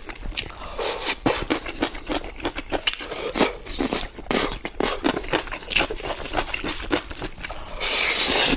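Close-miked mouth sounds of eating enoki mushrooms: rapid wet chewing and lip-smacking clicks, with a brief louder hiss near the end.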